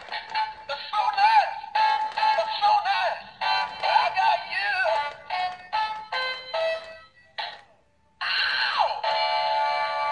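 Singing and dancing walking plush dog toy playing a song with a singing voice through its small built-in speaker, thin and tinny with no bass. The song stops about seven seconds in, and after a short pause a new tune starts.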